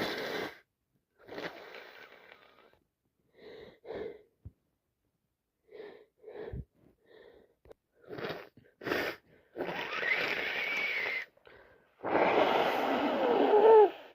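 A woman with a cold sniffing and catching her breath in short bursts, then two long, noisy sneezes with voice in them, the second one the loudest, near the end.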